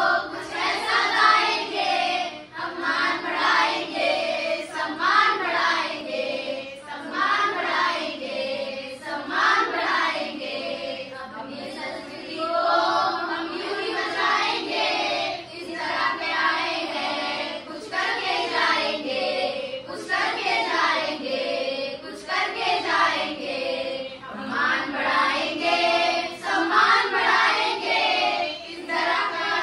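A group of children and adults singing together as a choir, young voices leading, with short pauses between phrases.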